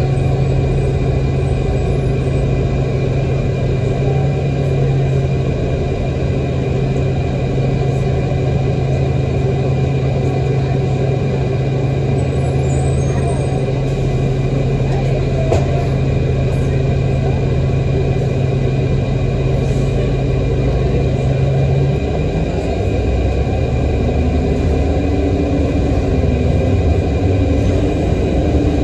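City transit bus's diesel engine heard from inside the passenger cabin, a steady low drone. About 22 seconds in the drone changes and a higher tone rises slightly, as the engine note shifts with the bus's speed.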